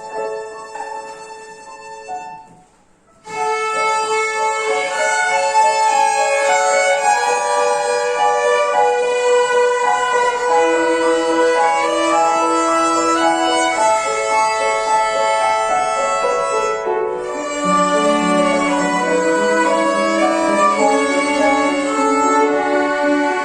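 A violin ensemble playing together, with piano accompaniment. About three seconds in the music dies away for a moment, then the violins come back in full. Lower notes join about two-thirds of the way through.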